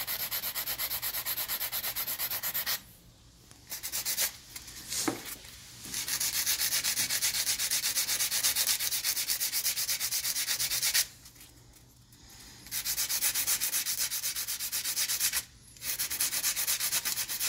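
An 80-grit sanding block rasps against the inside prong of a grille-shutter actuator case, filing it down with rapid back-and-forth strokes. The sanding comes in several runs, with short pauses about 3, 11 and 15 seconds in.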